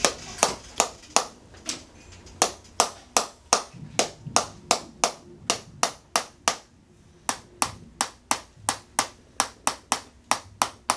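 A handheld chiropractic adjusting instrument tapping in a steady series of sharp clicks, about three a second, with a brief pause a little past the middle.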